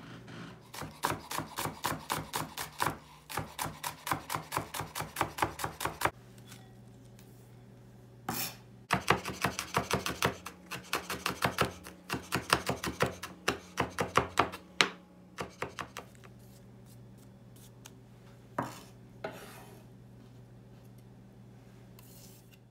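Chef's knife chopping red chillies and green onion on a wooden cutting board: two long runs of quick, even knocks, about four a second, with a pause between them, then a few single knocks.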